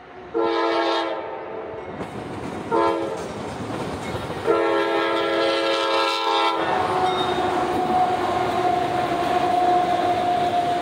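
A CSX freight locomotive's multi-chime air horn sounds a grade-crossing signal: a long blast, a short one, then another long blast. The locomotive then passes and double-stack intermodal cars roll by, with steady wheel-on-rail noise and a faint steady whine.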